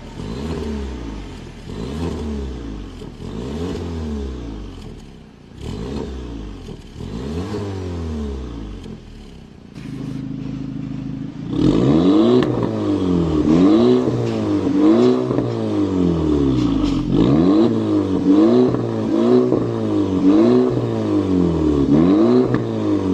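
Audi A5 B9 engine revved through an aftermarket RES cat-back exhaust: several slow rises and falls in engine speed, a brief steady idle about ten seconds in, then a run of louder, quicker rev blips to the end.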